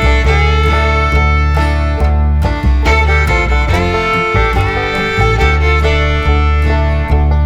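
Background bluegrass-style music, fiddle over strummed guitar with a steady beat.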